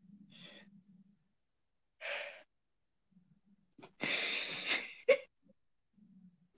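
A person breathing heavily in a few separate breathy gasps and exhales, the longest just before 5 seconds in, then a short sharp one.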